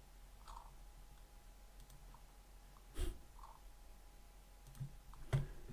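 Computer mouse clicks picked up by the desk microphone: a few sharp single clicks, the loudest about three seconds in and another near the end, over a faint steady electrical hum.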